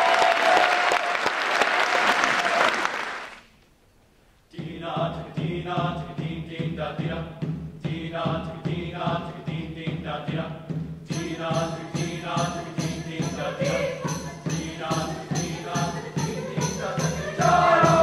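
Audience applause that stops about three seconds in, then after a brief pause an instrumental song introduction with a steady beat; a bright ticking percussion part joins about halfway through, and the choir's voices come in near the end.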